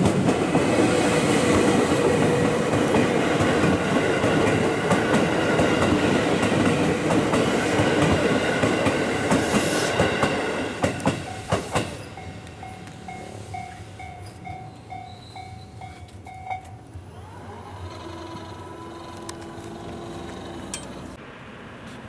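JR West 221 series electric train passing close by, its wheels clattering over the rail joints, with a few sharp clacks as the last cars go by about eleven seconds in. After that a level-crossing warning bell dings about twice a second for some four seconds, then stops.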